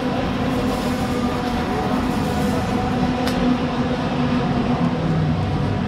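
Several kart engines running together in a steady drone, their pitches holding and shifting a little as they rise and fall.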